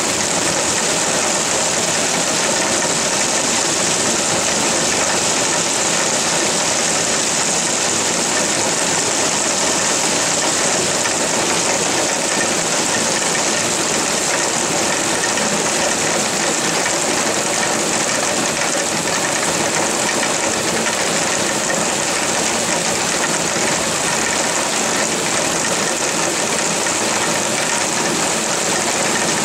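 Heavy rain falling, a loud, dense, unbroken hiss that holds steady throughout.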